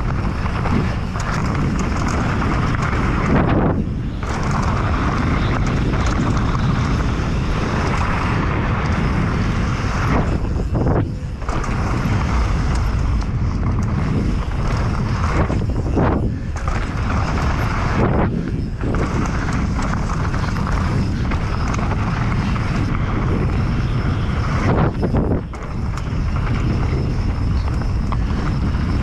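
Wind rushing over the microphone mixed with the rumble and rattle of a Specialized Demo downhill mountain bike rolling fast over a dirt trail. The noise is steady and dips briefly a few times.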